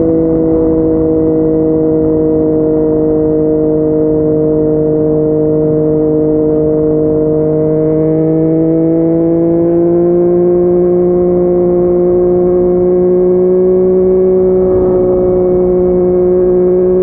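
Yamaha MT-09's three-cylinder engine through a Yoshimura R55 slip-on exhaust, holding a steady cruising note. Its pitch dips slightly, then climbs slowly over the second half as the bike gently picks up speed.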